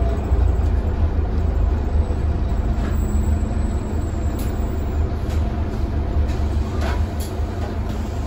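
Scania K320UB city bus heard from inside the passenger cabin while driving: a steady low engine and drivetrain rumble with road noise. A few light clicks or rattles come about halfway through and near the end.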